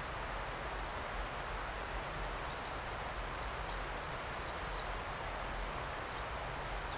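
A small songbird sings a long run of rapid, high-pitched notes. It starts about two seconds in and lasts some four seconds, over a steady background hiss of forest ambience.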